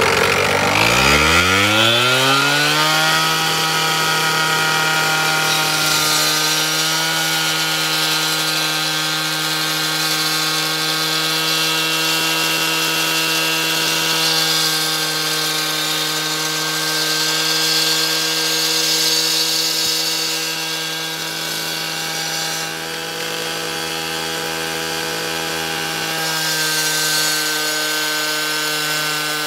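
Two-stroke gas-powered concrete cut-off saw revving up to full speed over the first few seconds, then running at a steady high pitch as it cuts into a concrete curb at an expansion joint. A gritty cutting hiss rises and falls several times.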